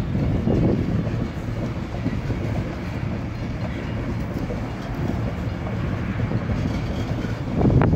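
Two-bay covered hopper cars of a slow freight train rolling past, a steady rumble of steel wheels on rail, with a brief louder clank near the end.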